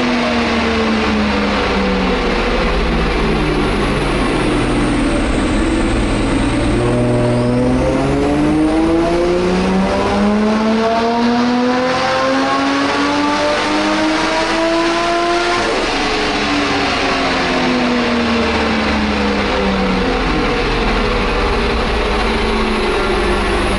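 Nissan R34 Skyline GTT's turbocharged RB25DET straight-six, fitted with a screamer pipe, running on a chassis dyno: revs fall away, then climb steadily under load for about eight seconds in a power run, then drop abruptly as the throttle is released and settle to a steady run.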